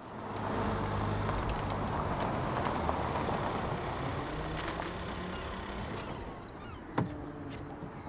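Audi estate car's engine running as the car pulls up, easing off towards the end, then a single sharp click about seven seconds in as the driver's door is opened.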